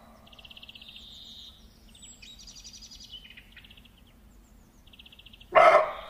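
Birds trilling and chirping: several rapid, high, buzzy trills, each lasting about half a second to a second. About five and a half seconds in comes one short, loud animal call.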